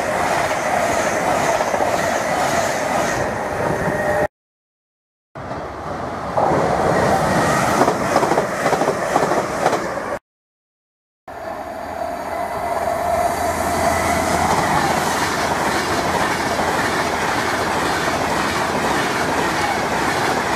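British Rail Class 390 Pendolino electric trains passing at speed: a loud, steady rush of wheels on rail with clickety-clack over the rail joints. The sound cuts out abruptly twice for about a second.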